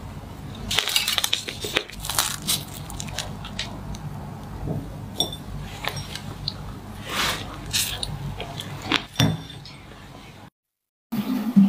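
Fork and ceramic plates clinking and tapping, a scatter of light, sharp clinks.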